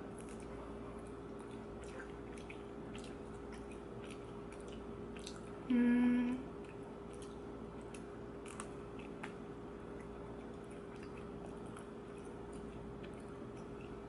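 Quiet close-up chewing of a cheese dumpling, faint soft clicks scattered through with little crunch: the dumpling has gone soggy rather than crisp. A steady low hum runs underneath, and about six seconds in there is one short hummed "mm".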